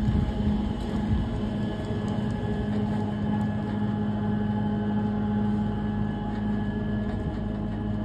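A steady machine hum holding one pitch throughout, over a low rumble.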